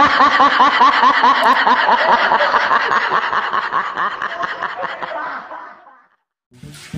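High-pitched laughter, a rapid run of about four rising-and-falling laughs a second, that fades out near the end.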